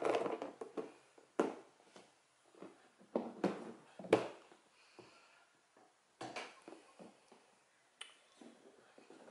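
A clear plastic food container and its lid being handled: a series of sharp knocks and clicks, spaced about a second apart.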